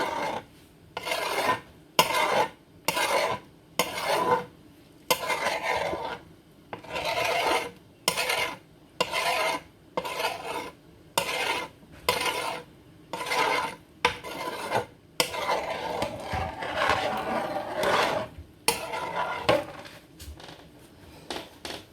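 Hands rolling and working cornmeal dumpling dough: repeated rubbing, rasping strokes, a little over one a second.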